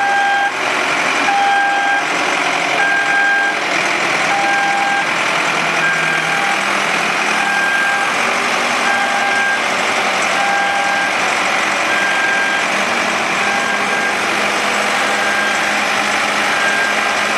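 XCMG XT872 backhoe loader's diesel engine running as the machine backs up, with its reversing alarm beeping steadily about once a second, clearest in the first part and fainter near the end.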